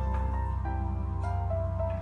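Background music: a slow melody of held notes changing pitch every half second or so over a steady low bass.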